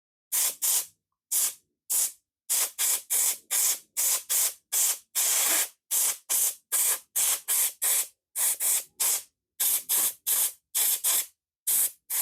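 Compressed-air blow gun fired in over twenty short hissing bursts, with one longer burst about five seconds in, blowing dirt out of a two-stroke mower's air filter.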